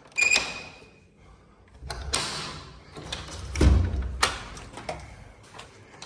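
A series of handling knocks: a sharp click with a short high ring, a scraping swish, then a heavy thud, the loudest sound, followed by another sharp click.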